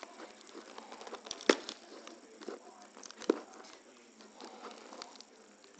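Hands working the plastic latch on a DJI Phantom 4's foam carrying case: light rubbing and scraping on the foam with scattered small clicks, and two sharp clicks, one about a second and a half in and one a little past three seconds.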